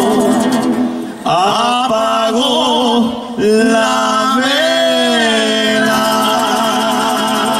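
Male singer singing long held notes with a wide vibrato, over acoustic guitar accompaniment, in a Latin American song; the voice pauses briefly twice, about one and three seconds in, between phrases.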